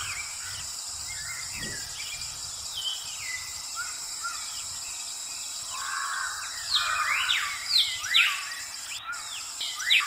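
Small birds chirping and twittering, many quick calls sweeping up and down in pitch and growing busier in the second half, over a steady high-pitched hum.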